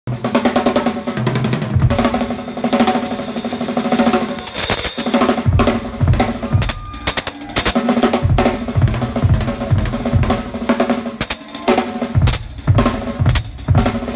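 Rock drum kit played hard at close range: snare and tom rolls over repeated kick drum thumps, with a cymbal wash about four and a half seconds in.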